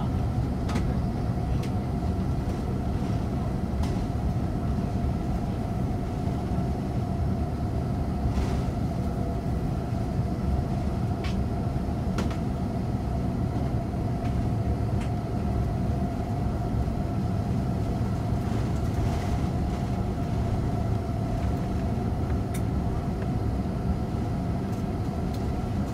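Cabin noise of an Airbus A330-200 taxiing, heard from a window seat beside the engine: a steady low rumble from its idling Pratt & Whitney PW4000 turbofans and the wheels rolling, with a faint steady whine and a few faint ticks.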